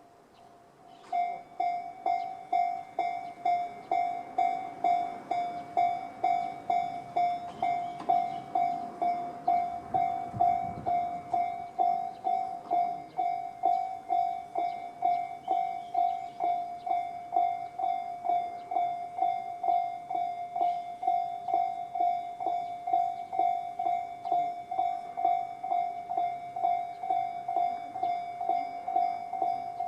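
Japanese level crossing electronic warning bells (Tobu 'sound C') starting about a second in and dinging steadily about twice a second, with the bells on both sides of the crossing sounding. A train rumbles through the crossing, building to its loudest around the middle.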